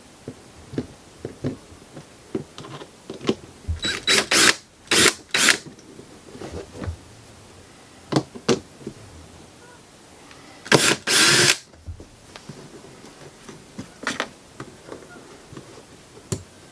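Short runs of a cordless drill-driver at the controller panel, in two clusters about four and eleven seconds in, among scattered clicks and knocks of hands working the fittings.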